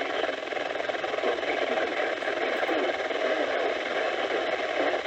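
Steady static hiss from a weather radio tuned to a weak, distant NOAA Weather Radio station, heard through a small speaker.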